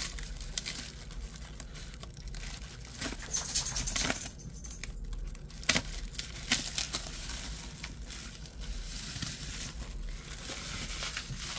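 Packaging being unwrapped by hand: rustling and crinkling of wrapping, with a denser crackle about three to four seconds in and a few sharp taps around the middle.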